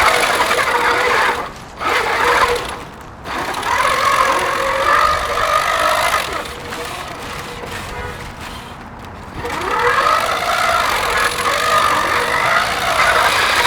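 Electric motors of small combat robots whining, their pitch rising and falling as they drive, with two brief drops in the first few seconds and a quieter stretch in the middle.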